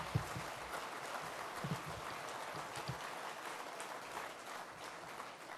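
Audience applauding, a dense patter of clapping that slowly dies down toward the end.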